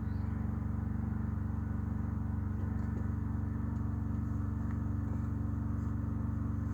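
Light aircraft piston engine idling, a steady low drone with an even beat, heard from inside the cockpit.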